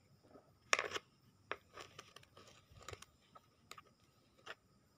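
Fingers digging into and pressing sandy potting soil in a pot to plant a seedling: faint, scattered crunches and scrapes, the loudest a short crunch just under a second in.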